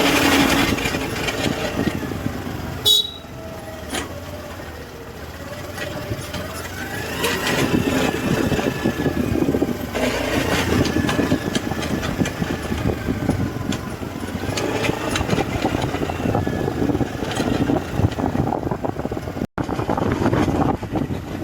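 Honda Activa 6G scooter being ridden: engine and rear drivetrain running with a whine that rises and falls with speed, plus a strange noise from the rear gear area. The mechanic traces it to play in the final-drive gearbox bearings. There is a brief sharp sound about three seconds in.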